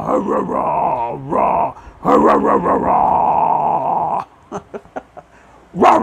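A man growling in a deep, raspy voice, imitating a Godzilla roar: two long growls, then a pause with a few faint clicks, and another growl starting near the end.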